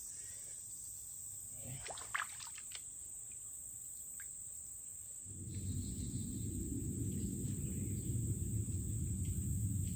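Steady high-pitched buzz of insects, with a few faint clicks about two seconds in. About five seconds in, a low rumbling noise comes in and slowly grows louder.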